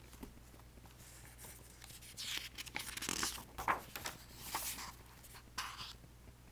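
Paper rustling in a run of short, quiet strokes from about two seconds in: a book page being handled and turned.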